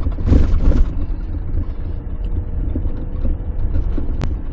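Jeep Gladiator driving on a dirt road: steady low engine and tyre rumble, with two rattling jolts in the first second and a sharp click near the end.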